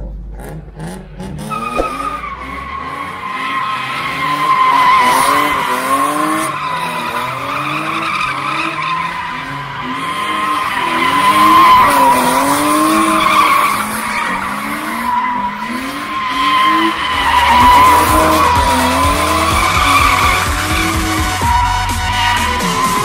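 Drift car's tyres squealing without a break as it slides sideways in circles, its engine revving up and down again and again under the squeal.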